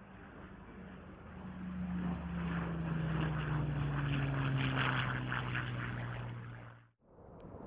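Hawker Hurricane's Merlin V12 engine on a low flypast, growing louder as it passes with its note sliding steadily downward. It cuts off abruptly near the end.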